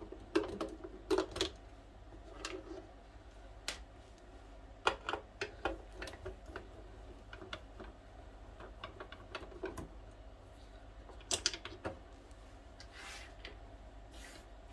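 Screwdriver taking two screws out of the plastic top cover of a Brother sewing machine: scattered light clicks and taps of the tool in the screw heads and against the plastic, in a few quick clusters, with a couple of short scrapes near the end.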